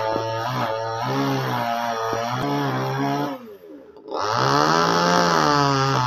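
Small two-stroke top-handle chainsaw engine running at part throttle, its revs wavering. About three and a half seconds in, the revs fall away and the sound nearly dies. It then picks back up, louder.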